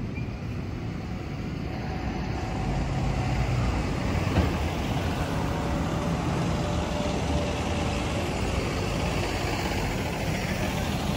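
Road traffic passing on a multi-lane city street: steady tyre and engine noise that grows louder about two seconds in, with a truck's engine hum among it.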